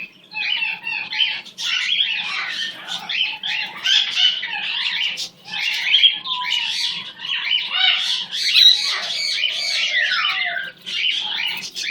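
A young pet bird, still growing its feathers, calling in a near-continuous run of short chirps and squawks with quick rises and falls in pitch, pausing only briefly now and then.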